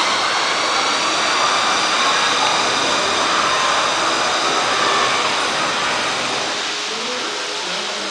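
Steady rumble of a roller coaster train running on its steel track, with faint high tones in it, easing slightly near the end.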